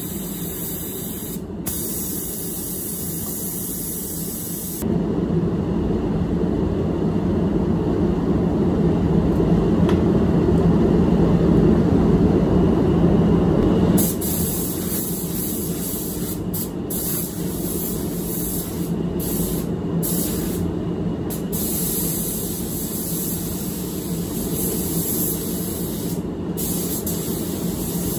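Compressed-air hiss of a gravity-feed automotive paint spray gun applying metallic paint, over the steady rush of spray-booth ventilation. A louder, lower rush runs from about five to fourteen seconds in, and in the second half the high hiss cuts out briefly several times, as between gun passes.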